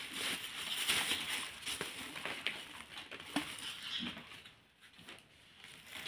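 Faint scattered clicks and light scraping from an Indian ringneck parrot's claws and beak on a stainless steel lid. The sounds drop to near silence for about a second near the end.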